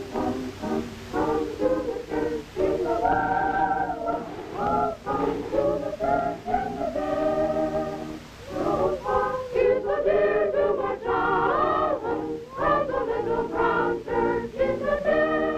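A choir singing with musical accompaniment.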